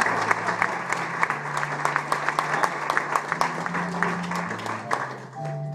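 Audience clapping, with background music playing sustained low notes underneath. The clapping dies away near the end, leaving the music.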